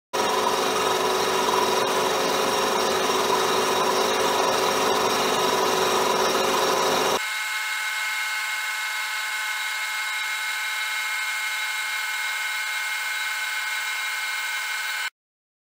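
Schaublin SV52 milling machine running a 16 mm end mill through a cast iron straightedge casting: a steady machining noise with several steady tones in it. About seven seconds in, the sound changes abruptly to a thinner, higher noise without its low end.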